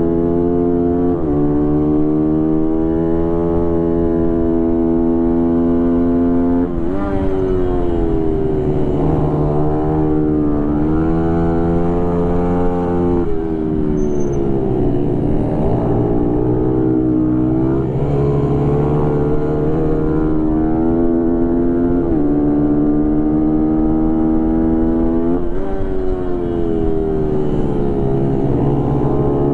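Small mini motorcycle engine running hard at high revs, heard from on board during a race. Its pitch holds, then jumps up sharply and sags back again about every four to six seconds, with the throttle and gear changes through the corners.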